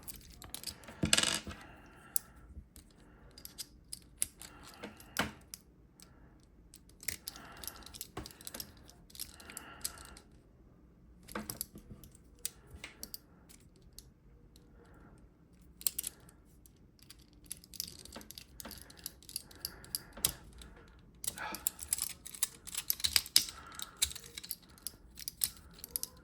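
Small hard plastic toy parts clicking and rattling as they are handled and set down, in scattered clicks with a few busier bursts of rattling.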